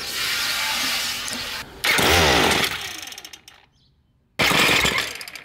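Ryobi ES30 two-stroke string trimmer engine being started on choke with its electric touch-start. It fires about two seconds in, its pitch falls away and it dies. It catches again briefly near the end and fades.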